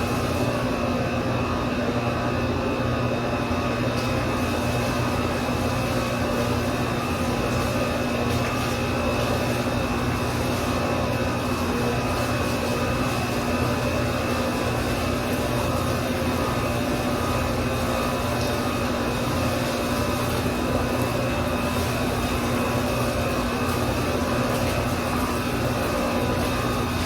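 Steady machine hum with a constant low tone and a thin high whine over it, unchanging.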